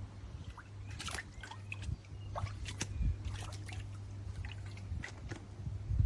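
Shallow water sloshing and dripping in a foldable dog pool as a dog moves about in it: scattered small splashes and taps over a steady low hum.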